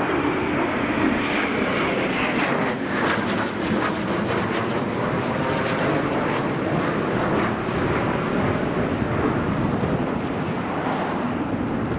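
Eurofighter Typhoon jet engines: a loud, continuous jet roar that brightens over the first few seconds, with crackle in the middle, easing slightly near the end.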